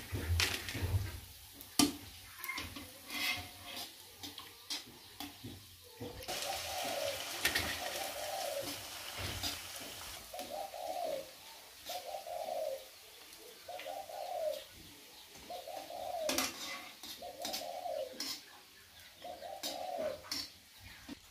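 A dove cooing, the same short call repeated about once every second and a bit from about six seconds in. Before that come a few sharp clinks and knocks.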